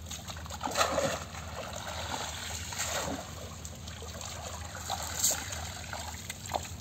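Water trickling and splashing as a wet cast net is hauled out of shallow pond water and drains, with a few sharper splashes, the clearest a little past five seconds in.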